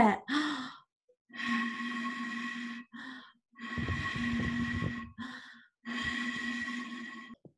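Three long blown notes across the mouth of a metal water bottle, each about a second and a half and steady in pitch, with a breathy hiss: a made-up sound of the howling wind of a snowstorm.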